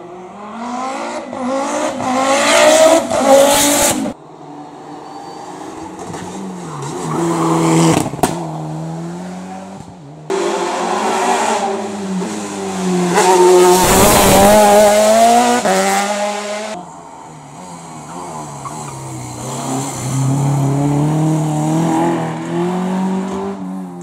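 Hill-climb racing cars accelerating hard through tight bends one after another, engines revving up and dropping back with gear changes. The sound jumps abruptly from one car to the next three times.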